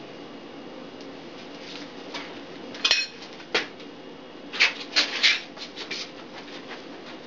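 Sharp clicks and knocks from handling a bicycle wheel while the tubular tire is rolled onto the rim: one near three seconds in, another just after, then a quick cluster a little past the middle.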